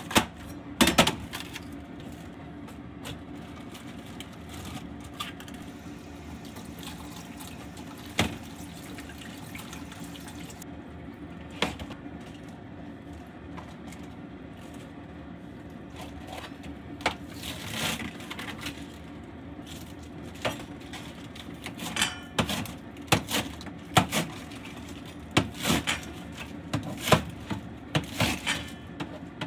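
Knife cutting leafy greens on a plastic cutting board, a few knocks at first and then brisk irregular chopping strokes in the last third. Before that, water runs and sloshes as the leaves are washed in a bowl in the sink.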